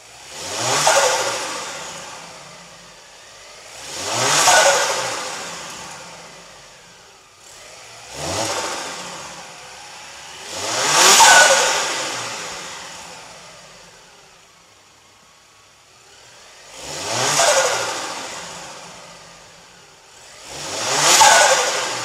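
Turbocharged Opel Zafira engine free-revved six times, a few seconds apart. Each rev rises in pitch to a loud peak, then drops off with a hissing turbo flutter and a whistle falling away as the turbo spools down.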